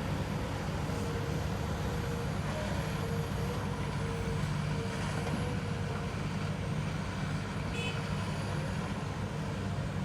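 Radio-controlled model construction machines running: a steady, engine-like low hum with a thin wavering whine above it.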